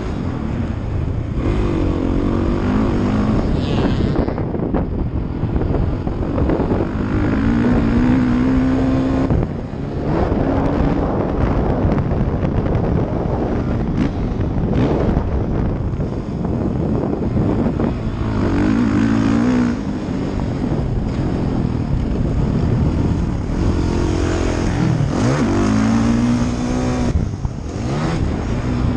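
2016 Suzuki RM-Z450's single-cylinder four-stroke engine revving up and down through the gears while the bike is ridden around a motocross track. The throttle is briefly shut off about a third of the way in and again near the end.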